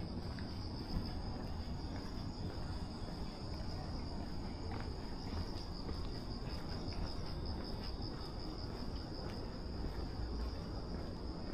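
Crickets chirping in a steady, high, finely pulsing trill, over a constant low background rumble.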